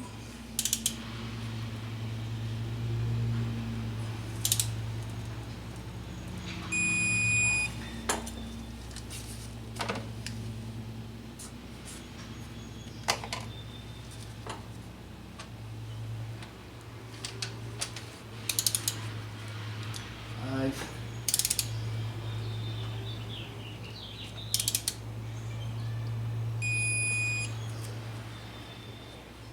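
Digital torque-angle wrench beeping twice, about 20 seconds apart, as cylinder head bolts are turned to their target angle, among scattered clicks and metallic clinks of the wrench and socket on the bolts. A steady low hum runs underneath.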